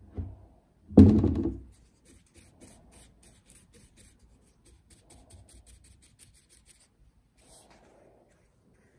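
A thump about a second in, then a bristle brush rubbing a wet finish onto a laburnum burl hollow form in quick, faint, scratchy strokes.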